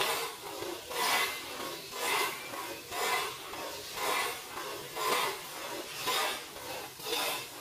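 Short hand-held saw blade rasping back and forth across a wooden stick in slow, even strokes, about one a second.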